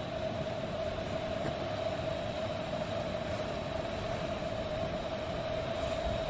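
Jetboil stove burning on a Primus gas canister: a steady hiss with one steady note running through it, the water almost at the boil.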